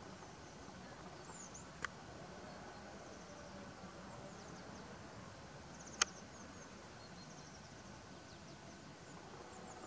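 Faint, steady meadow ambience with scattered short high-pitched chirps from insects or small birds. A sharp click comes about two seconds in and a louder one about six seconds in. No stag roar is heard.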